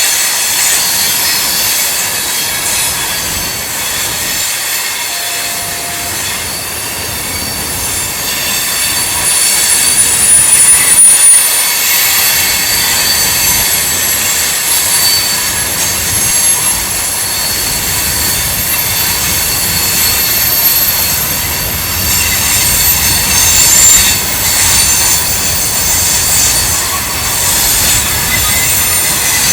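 Freight train cars rolling through a curve, their wheels squealing against the rail in several steady high-pitched tones over a low rumble of the cars. The rumble grows louder about halfway through.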